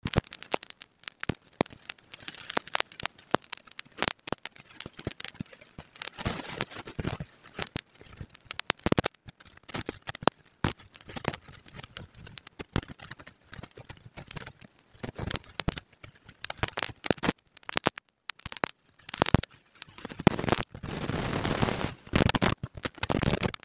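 Fingers shredding cooked mackerel tuna in a bowl: a dense, irregular run of small crackles and clicks as flesh and skin are torn apart and flakes drop into the bowl. Near the end the sound thickens into a rustling as the shredded flakes are rubbed and tossed together.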